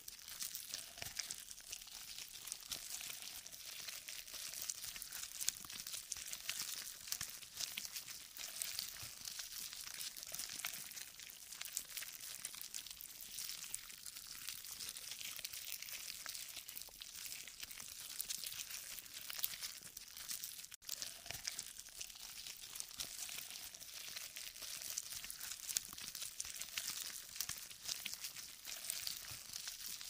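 Worms-eating-through-flesh sound effect: a dense, continuous crackle of many tiny clicks, with a momentary break about two-thirds of the way through.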